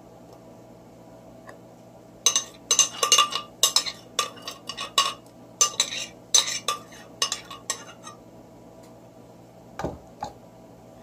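A metal utensil clinking and scraping rapidly against an upturned blender jar, knocking out the last of a thick beetroot marinade. A couple of duller knocks come near the end.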